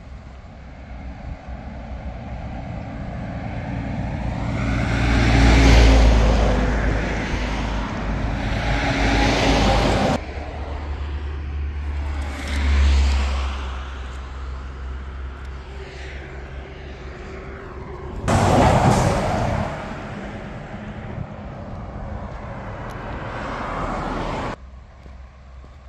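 Road traffic: vehicles passing, their engine and tyre noise swelling to a peak about six seconds in and again twice later, with the sound cutting off abruptly a few times.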